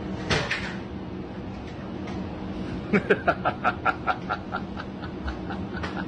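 A bear knocking about a convenience store's candy rack: a brief rustle just after the start, then about two seconds of rapid rattling knocks, some six a second, dying away, over a steady low hum.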